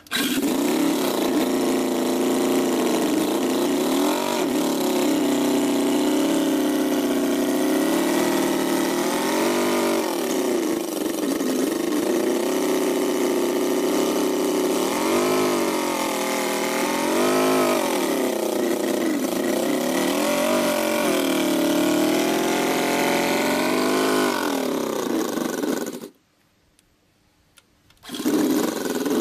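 Miniature working model of a Ferrari V8 engine comes in suddenly and runs, revved up and down several times with its pitch rising and falling. It breaks off for about two seconds near the end, then runs again.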